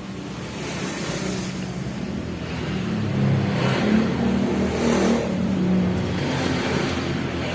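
Suzuki GT750 two-stroke triple engine running and being revved, growing louder over the first few seconds, with its pitch rising and falling.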